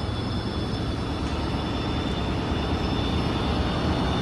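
Siemens Charger diesel locomotive running, a steady low rumble with a thin high whine over it, growing slightly louder near the end.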